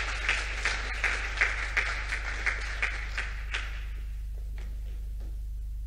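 Applause from a small group, with sharp individual claps standing out about three a second, dying away about three and a half seconds in to leave a steady low hum.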